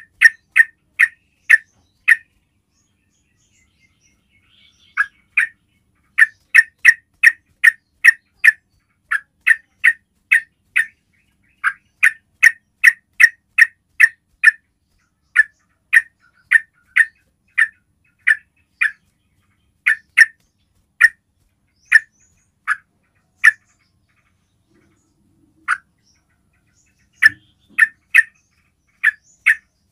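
Yellow-vented bulbul giving its basic call: a long series of short, sharp, loud notes, about two a second, broken by two pauses of a few seconds.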